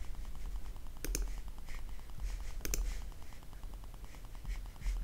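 Computer mouse clicks while navigating menus: two sharp clicks, each a quick press-and-release pair, about a second in and a second and a half later, with a few fainter ticks over a faint low hum.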